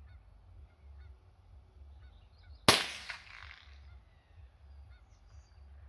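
A single .22 rifle shot, a sharp crack about two and a half seconds in, followed by a rolling echo off the forest that trails away over about a second. The shooter puts the long echo down to the air being dense with fog and wildfire smoke.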